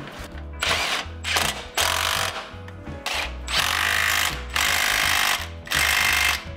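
Cordless electric ratchet running in about six short bursts, spinning a bolt through the differential's mounting bushing.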